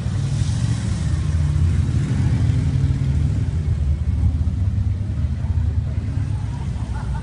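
Low, steady rumble of vehicle engines as a California Highway Patrol SUV in a police motorcade drives past.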